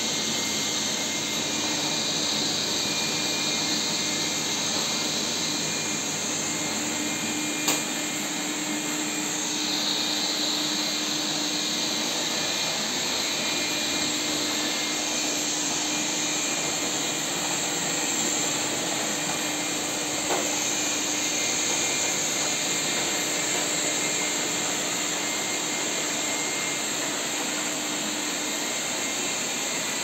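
Three robot vacuum cleaners (Xiaomi Mijia 1C, Lefant M201 and Ecovacs) running at once on a tiled floor: a steady whir of suction fans with a high whine over it. Two short sharp knocks, about eight and twenty seconds in.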